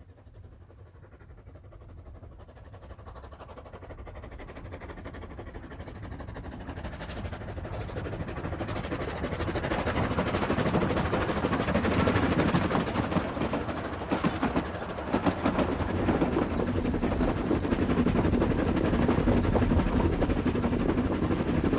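Narrow-gauge steam locomotive working hard as it hauls a train, its rapid exhaust beat growing louder as it approaches over the first ten seconds or so, then staying loud and steady.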